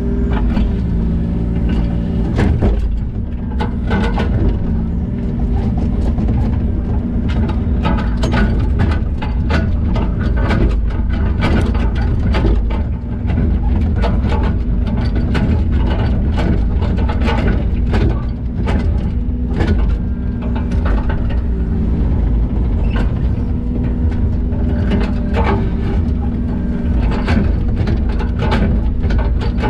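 Diesel engine of digging machinery running steadily, its note shifting with the load. Frequent sharp clanks and rattles of metal and stone run through it as drainage stone is moved and packed.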